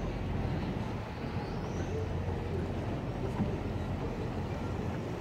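Steady low rumble of motorboat engines out on the canal, with faint voices and a few faint, high rising chirps.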